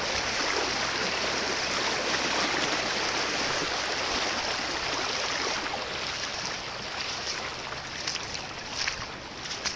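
Shallow river running over stones, a steady rushing hiss that eases off from about halfway through. Near the end come a few short crunches of footsteps on river cobbles.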